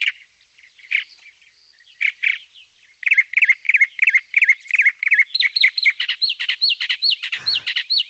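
Recorded northern mockingbird song: scattered chirps, then a quick run of the same note repeated several times a second, then a higher repeated note from about five seconds in. Each phrase is repeated before it switches to a new one, about three different calls in a few seconds.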